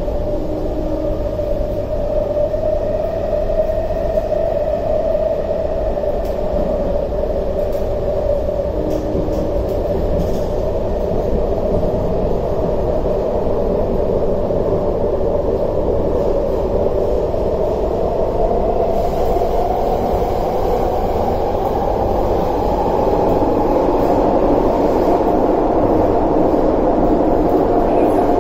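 Running noise of an MTR Tuen Ma Line China-built (C-train) metro train heard from inside the passenger car: a steady hum and rumble whose main tone rises in pitch and grows slightly louder over the last ten seconds or so.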